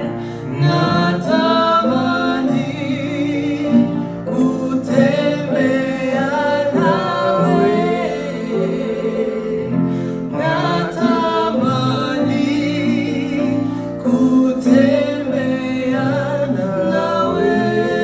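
A song: singing voices over instrumental accompaniment.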